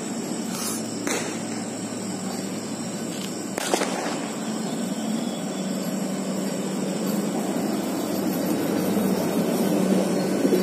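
Train 18 (Vande Bharat Express) electric multiple unit running in past the platform: a steady electric hum and low drone that grows slowly louder as the train draws near, with a few sharp clicks in the first four seconds.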